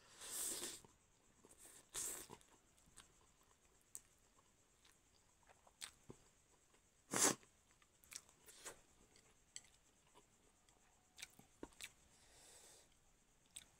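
A person eating chowmein noodles with chopsticks, close to the microphone: noodles slurped in and chewed, with light clicks of the chopsticks on the plate. A short sharp noise a little past seven seconds in is the loudest.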